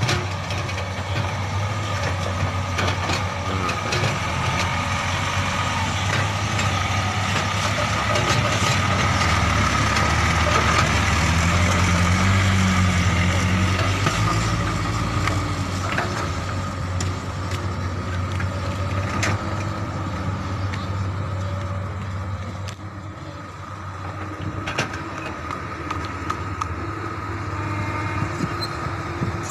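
Light diesel dump truck, loaded with soil, driving over rough dirt with its engine running steadily. It grows louder as it passes close about halfway through, then fades as it drives away.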